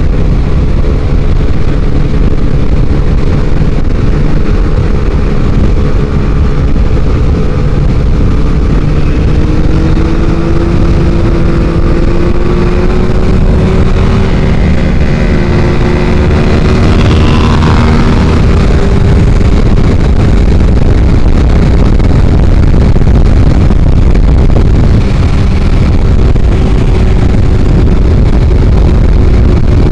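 Suzuki GSX-R600 inline-four engine running at cruising speed, heard under heavy wind rush at a helmet microphone. Its note drifts gently up and down without sharp revs.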